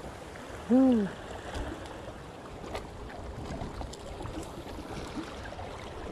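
Steady wash of water at a river mouth, with one short vocal sound about a second in that rises and then falls in pitch, and a few faint clicks.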